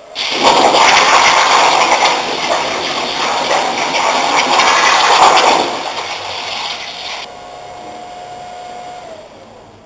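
Plasma torch on a CNC plasma cutting table piercing and cutting sheet steel: a loud hiss cuts in abruptly about half a second in, runs steadily for about five seconds, then fades as the cut ends. A quieter hiss with a steady whine follows, the whine sagging and stopping near the end.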